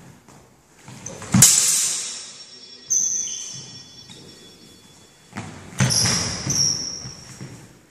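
Steel longswords clashing blade on blade several times, each strike leaving a high metallic ring that slowly dies away, with a quick run of clashes near the end.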